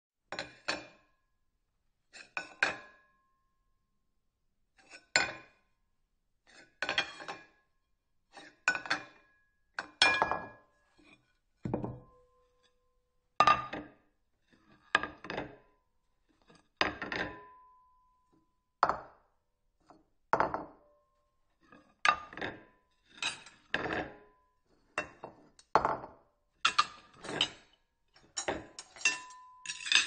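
Ceramic plate clinking and knocking: about twenty separate short clatters, roughly one every one to two seconds and coming closer together toward the end. Some leave a brief ringing tone.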